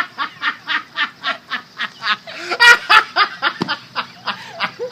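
A person laughing hard in a long run of short 'ha' pulses, about four a second, with a louder burst a little past the middle.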